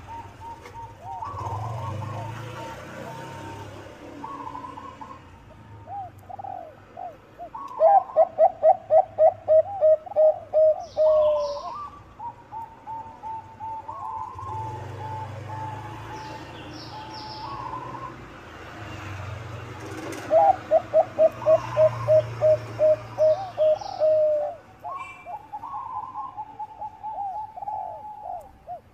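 Zebra doves (perkutut, Bangkok strain) cooing. Two loud bouts of quick staccato coos, about three or four a second, each lasting three to four seconds, with softer coos in between. Brief high chirps of small birds come in a few times.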